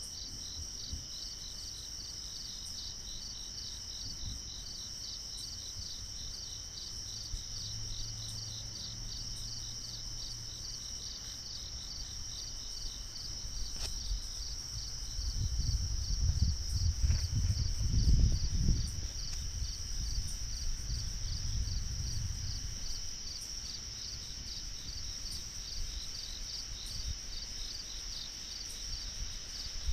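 Night insects chirring steadily in a fast pulsing rhythm, with a low rumble that swells for several seconds about halfway through.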